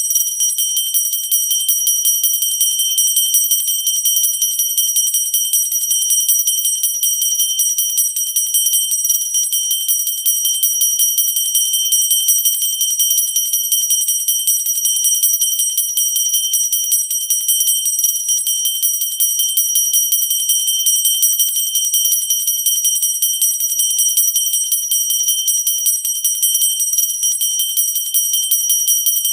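Pooja bell rung continuously, its clapper striking rapidly and without pause, giving a steady high-pitched ring.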